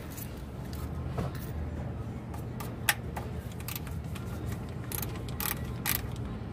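A ratchet with a 13 mm socket working the oil pan drain plug loose, making a few separate metallic clicks about three seconds in and again near the end, over a low steady hum.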